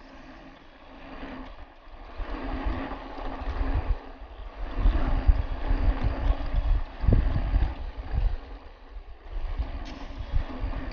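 Mountain bike riding along a rough dirt trail: tyres rolling over the ground with wind buffeting the microphone in a low, uneven rumble, and a few short knocks from the bike over bumps, the loudest about seven seconds in.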